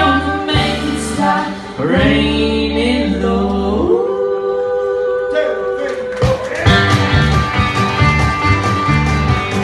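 Live country band with guitar: a singer's voice holds a long note through the middle, then the instruments carry on without the voice for the last few seconds.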